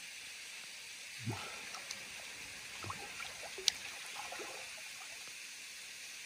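Quiet lake water trickling and lapping around a person standing waist-deep, with a few small soft splashes and one sharp click a little before the middle.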